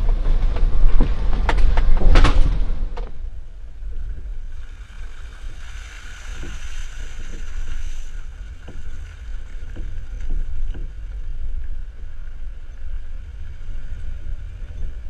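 Off-road Jeep engines running in a mud drag race. There is a loud rumble with scattered knocks for about the first three seconds, then it drops to a fainter steady drone.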